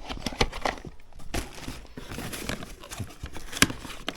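Packaging of new tractor service filters being handled and unpacked: light crinkling with scattered clicks and knocks.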